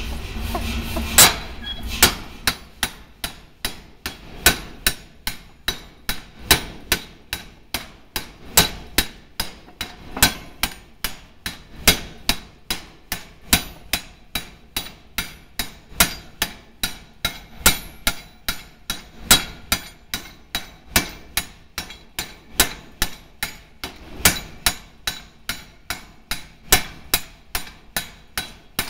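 A 5 cwt Massey power hammer strikes a red-hot 4140 steel bar with sharp, evenly spaced blows, about two to three a second, forging the shank of an anchor bolt. A low running rumble comes before the first blow, about a second in.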